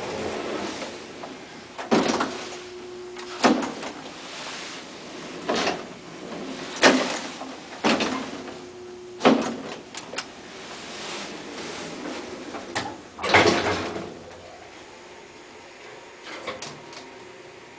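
Old traction elevator's sliding doors opening and closing, with a string of metallic clunks and knocks as the panels move and stop. A short steady hum sounds twice, each for about a second.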